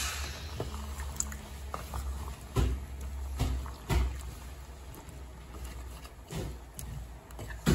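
Wooden spatula stirring a chunky chicken-and-potato stew in a stainless steel pan: liquid sloshing, with several sharp knocks of the spatula against the pan, the loudest near the end, over a low steady hum.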